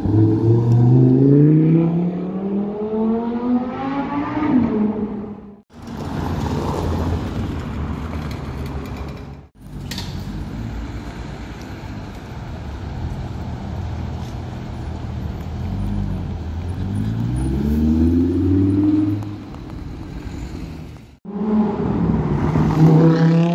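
Supercar engines accelerating away in several short cuts: a Lamborghini Huracán's V10 revving up with a rising note over the first few seconds, later an Audi R8 Spyder's V10 pulling away with another rising note, and near the end a further short rising rev.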